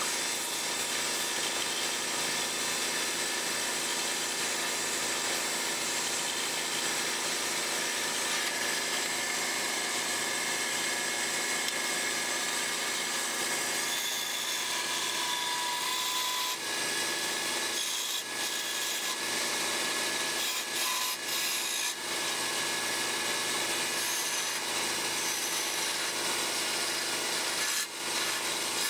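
Wood lathe running steadily while a hand-held turning chisel cuts the spinning wooden blank, a continuous scraping hiss over the lathe's hum. The cutting breaks off briefly a few times in the second half as the tool lifts from the wood.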